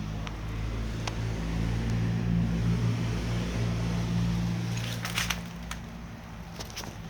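A motor or engine running steadily with a low hum, growing louder and then fading away about five seconds in. A few sharp clicks follow.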